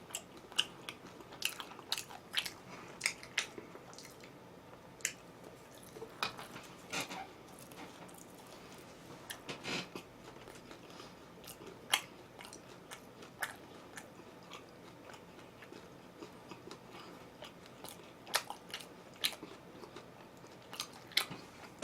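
A person chewing and biting food close to the microphone, with irregular sharp mouth clicks and crunches scattered throughout.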